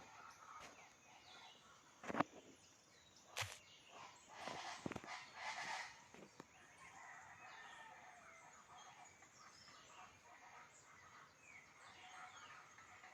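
Faint outdoor birdsong: a distant fowl gives a crowing call about four to six seconds in, followed by many small birds chirping. Two sharp knocks come just before the call.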